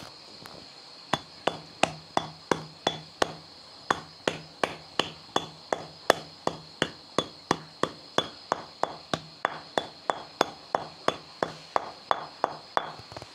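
Snake meat and bones being pounded with the bottom of a glass bottle to crush the hard bones. The blows come steadily, about three a second, starting about a second in.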